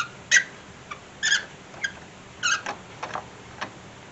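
A spark plug socket and extension being turned by hand in the plug well, threading in a new spark plug, giving a string of short, irregular squeaks and clicks.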